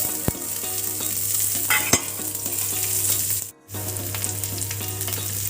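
Chopped onion sizzling as it fries in hot oil in a pan and is stirred, with a couple of sharp clicks of the spoon against the pan in the first two seconds. The sizzle drops out briefly about three and a half seconds in.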